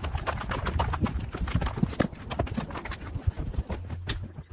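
Footsteps of two people walking on a snow-packed driveway: a quick, uneven run of scuffing steps.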